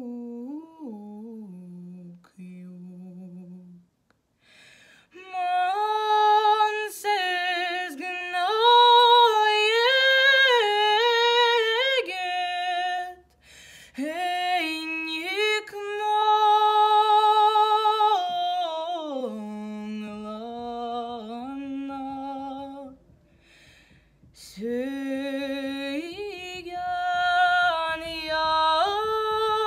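A woman's solo unaccompanied voice singing a slow Tatar lullaby. It starts with soft, low notes, then rises into three louder phrases of long held notes that waver in pitch, with short pauses for breath between them.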